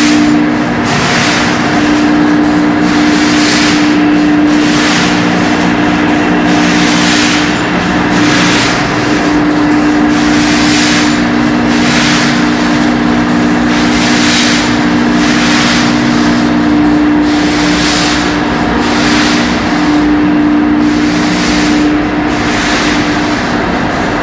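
Machinery running in a tanker ship's pump room: a loud, steady hum with several held tones, under a rushing hiss that swells and fades about once a second.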